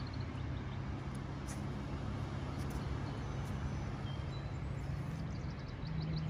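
Lawn mower engine running steadily, heard from a distance as a low, even hum; its note rises slightly near the end.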